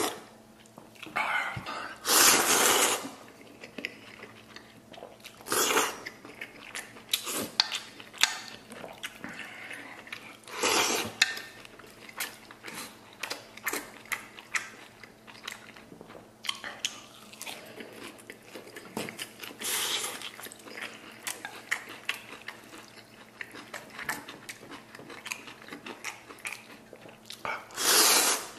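Noodles being slurped in loud, long sucks several times, with close-up chewing and small clicks in between.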